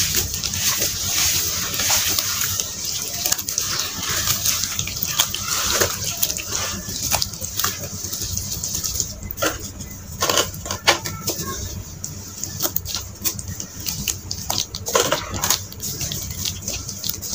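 Hands crumbling dried red sand into a tub of water, then swishing, squeezing and slapping the muddy water close to the microphone. There is a dense gritty hiss for the first few seconds, then separate wet splashes and squelches.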